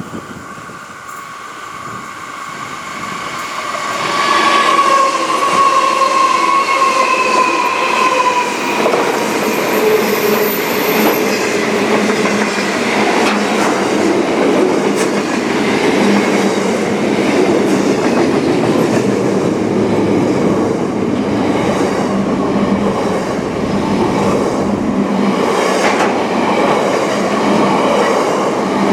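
A train approaching and passing close by, swelling over the first few seconds into a loud, steady rumble of cars and wheels on the rails. A high squealing tone slowly falls in pitch for several seconds after it arrives.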